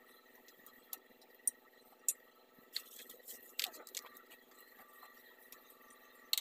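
Scattered sharp metallic clinks of a hand wrench working on a truck's wheel hub, over a steady faint hum. There is a brief rustle of clothing brushing close past near the middle.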